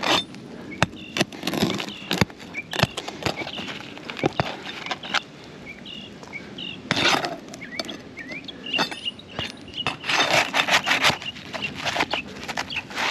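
A flat bar prying roofing nails out from under asphalt shingles: irregular scraping and squeaking of metal against shingle, with scattered sharp clicks and two longer stretches of scraping, about seven seconds in and again near ten seconds. Faint bird chirps in the background.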